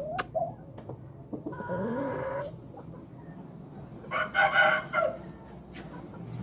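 Aseel chickens calling: a shorter call about a second and a half in, then a louder rooster crow about four seconds in.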